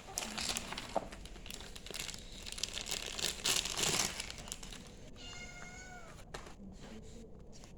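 Packaging crinkling and rustling for about four seconds, then a cat meows once, a single call about a second long that falls in pitch at the end.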